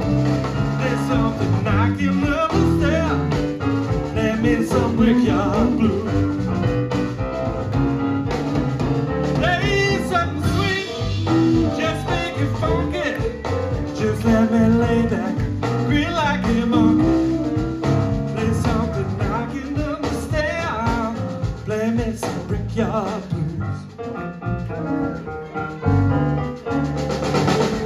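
Live blues band playing an instrumental passage on electric guitar, keyboard, electric bass and drum kit, with a steady groove.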